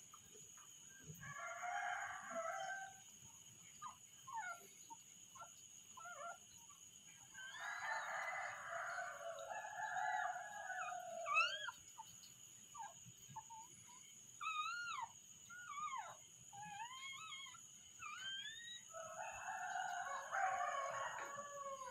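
Chickens calling: three long crows about a few seconds each, near the start, in the middle and at the end, with many short rising and falling calls in between.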